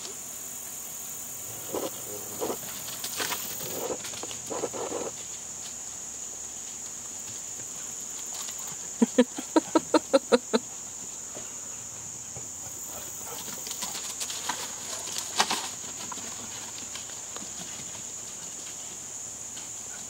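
Insects such as crickets droning steadily in the grass, with scattered short knocks and rustles. About nine seconds in comes a quick run of about eight short pitched sounds, the loudest thing here.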